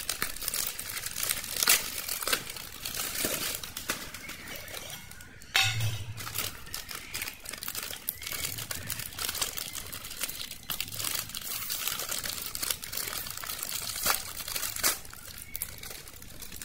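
Crinkly plastic snack packet being handled and pulled open by hand, crackling throughout with a few sharper snaps, the loudest about five and a half seconds in.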